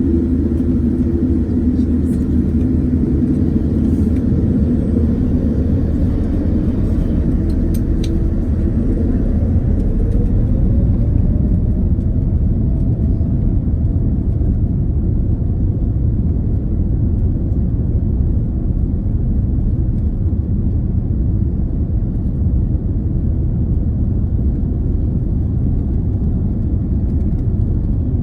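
Boeing 787-10 taking off: a loud, steady, low rumble of jet engines and airframe, with a faint tone rising in pitch about ten seconds in.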